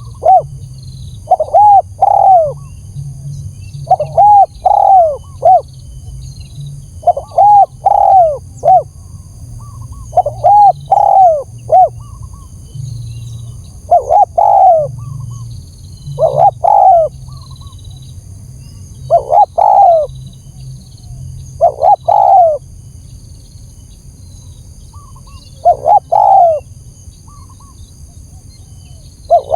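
Spotted dove (tekukur) cooing a lure call: a phrase of three or four rounded coos, repeated about every three seconds, about ten times, with longer gaps toward the end.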